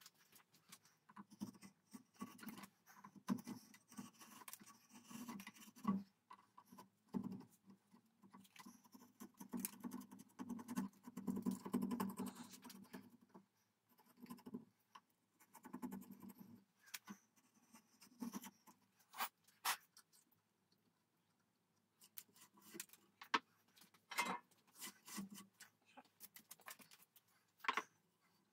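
A hand tool scraping in irregular strokes along hardened glass-fiber bedding in the barrel channel of a wooden rifle stock, with sharp clicks and taps in the second half.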